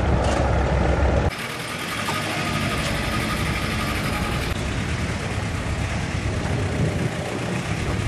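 Low rumble of a boat's engine running, which cuts off abruptly about a second in and gives way to a quieter, steady hissing background.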